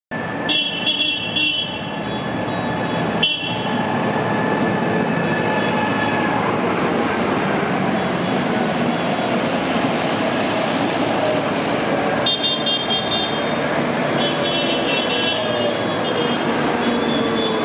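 Farm tractors driving past in a slow parade, their engines running steadily, with repeated short horn toots: several near the start and a longer run of toots from about twelve seconds in.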